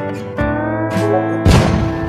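Background music: a slide-guitar tune over sustained bass notes, with a loud drum hit about a second and a half in.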